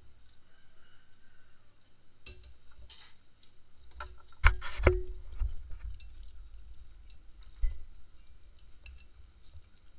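Chopsticks and metal spoons clinking and scraping against ceramic bowls and glasses on a wooden table as people eat, with a few louder knocks about halfway and one more near the end.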